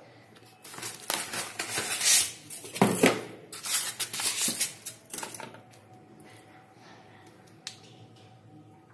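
Cardboard box and white foam packing handled as a replacement UPS battery is pulled out: a run of irregular rustling and scraping noises that die down about halfway through.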